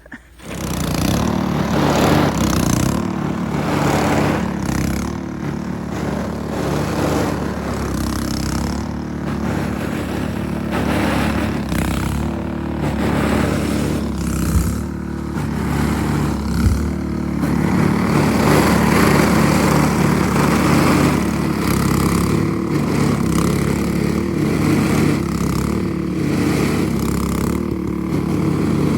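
Small gasoline engine, likely a snowblower's, catching and then running steadily. The engine gets louder and rougher from about eighteen seconds in.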